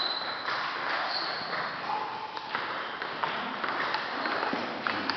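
Celluloid table tennis ball clicking off the bats and the table in a rally: a run of sharp, irregular clicks from about halfway in.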